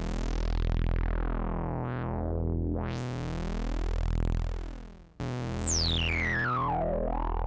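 Korg Volca Keys analog synthesizer holding one low note in unison mode, its detuned voices beating against each other, while the resonant filter cutoff is swept down, then opened sharply. Just after five seconds the sound drops out and comes back, and a whistling resonant peak glides down through it, the filter stepping audibly as it moves.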